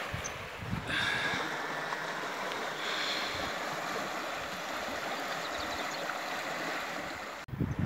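Canal water rushing in rapids over the fallen girders and rubble of a collapsed railway bridge: a steady, even rushing noise that breaks off abruptly near the end.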